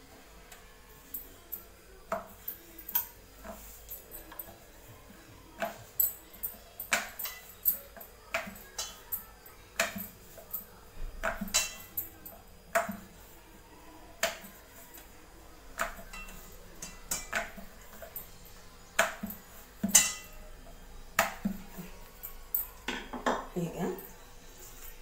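Wooden rolling pin clacking and knocking irregularly against a round wooden board as dough is rolled out flat for a paratha, sharp knocks one to three times a second. Near the end comes a scrape of a steel bowl being handled.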